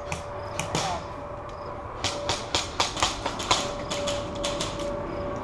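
Airsoft gunfire: sharp cracking shots, a couple early, then a quick string of about ten shots about two seconds in, then a few single ones. A faint steady hum runs underneath.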